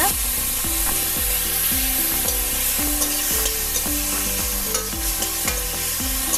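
Crushed onion, tomato and chilli paste sizzling in hot oil in an aluminium kadai while a flat spatula stirs and scrapes it around the pan, over a faint background tune.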